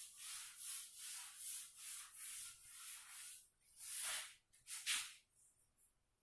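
Chalk being wiped off a blackboard with quick back-and-forth rubbing strokes, about three a second, then two longer, louder swipes near the end.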